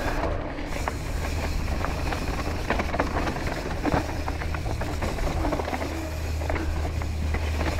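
Mountain bike descending a loose gravel trail: wind rushing over the camera microphone as a steady low rumble, with tyres crunching on gravel and frequent small clicks and rattles from the bike.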